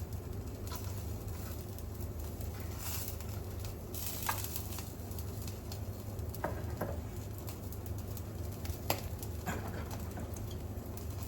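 Pork shoulder loin sizzling on an electric shichirin grill under a running range-hood fan. The fan gives a steady low hum, and fat on the grill sends up scattered pops and clicks, the sharpest a little before the end.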